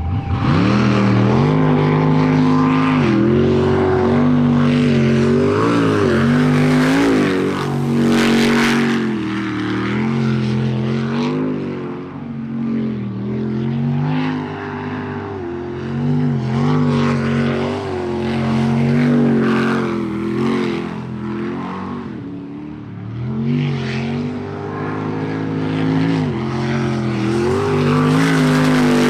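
Supercharged sprint boat engine fitted with a belt-driven ProCharger, running hard through a timed run. It revs up sharply at the start, then rises and falls over and over as the boat is driven through the course.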